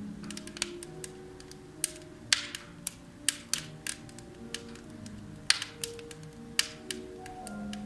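Firewood burning in a wood-burning fireplace, crackling with irregular sharp pops, a few much louder than the rest. Soft, slow cafe music plays underneath.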